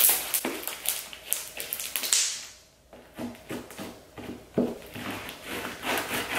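Slime heavy with gold mica powder squished and kneaded by hand, a run of small sticky clicks and pops, with a brief lull a little under three seconds in; then it is pressed down on the tabletop.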